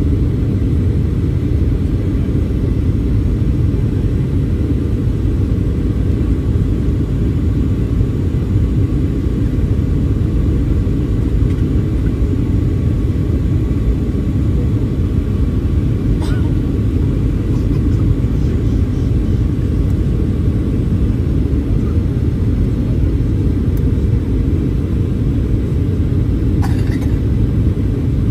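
Steady low rumble of engine and airflow noise inside a Boeing 737-800's passenger cabin, constant in level throughout.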